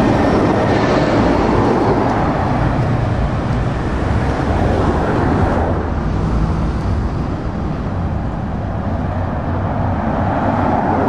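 Diesel truck engines and road traffic passing close by: a Scania Super R440 lorry drives past first, then after an abrupt change about six seconds in, a DAF LF recovery truck and cars approach.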